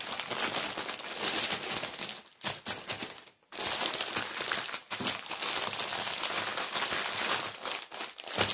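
Clear plastic packaging crinkling as hands handle and fold it, in a continuous rustle with a short break about three and a half seconds in.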